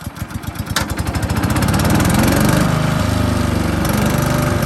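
DR Premier 300 wood chipper's brand-new replacement engine starting for the first time: its firing beats speed up over the first couple of seconds, then it settles into a steady run.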